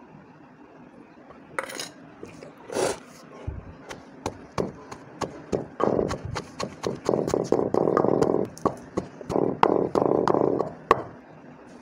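A long wooden pestle pounding wet tamarind-pickle and green-chilli paste in a stone mortar: a few scrapes and knocks at first, then a quick run of dull thuds and mushy squelching, louder in bouts over the second half.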